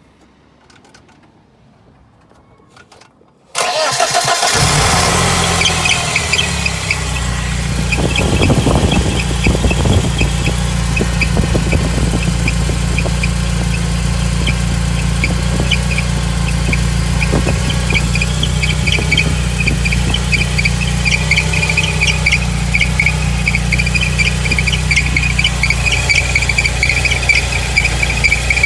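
BMW E30 318iS four-cylinder engine starting about three and a half seconds in and then idling, with a loud, high, chirping squeal from the power steering belt that grows stronger near the end. The squeal on start-up is the belt problem the owner is showing.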